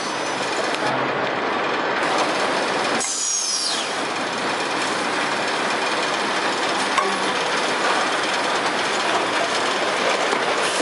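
Automatic carton palletizer and roller conveyors running: a steady mechanical clatter and rattle, with a short falling high squeal about three seconds in.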